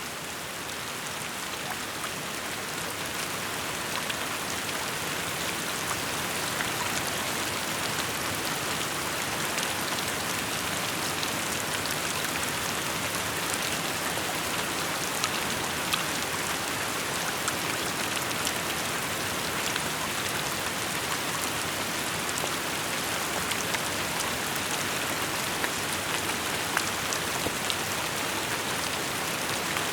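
Steady rain falling, an even hiss with many small sharp drop taps on hard surfaces close by, growing slightly louder in the first few seconds.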